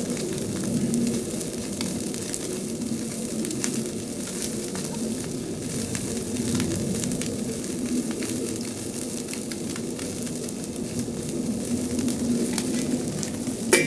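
Salted mackerel sizzling on a wire grill over wood-fire embers, with scattered small crackles. A short sharp clatter comes at the very end.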